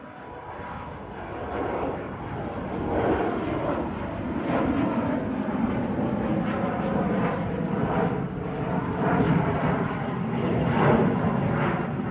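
Jet noise from an Embraer E175's twin GE CF34-8E turbofans at takeoff. It swells over the first two to three seconds, then holds loud and uneven.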